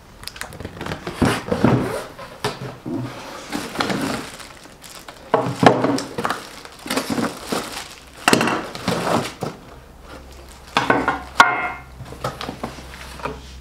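Cardboard box and plastic packaging rustling and crinkling as a mixer attachment, a mincer, is taken out and unwrapped, with a few sharp knocks of parts against the box.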